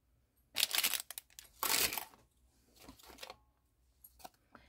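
Scratchy swishes of an ink blending tool rubbed over the edges of a paper tag to ink and age them: two strong strokes in the first two seconds, then a few lighter ones.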